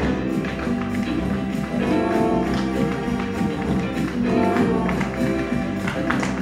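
Live instrumental music with held, pitched notes, over which tap shoes strike a wooden stage floor in sharp, irregular clicks.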